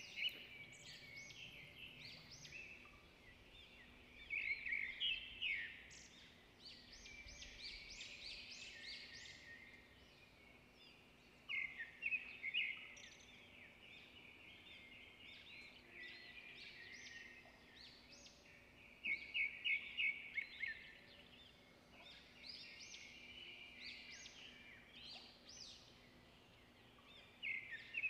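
Faint chirping of small birds in short repeated bursts, over a low steady hum.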